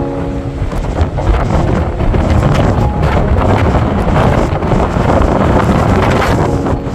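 Strong coastal wind buffeting the microphone in loud, uneven gusts, over the rush of a rough sea breaking on rocks.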